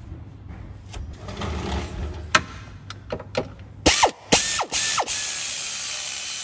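Pneumatic air ratchet running in a belt tensioner bolt: a few short bursts about four seconds in, then a steady run of about two seconds that stops suddenly. Before it, quiet clicks and handling as the bolt is started by hand.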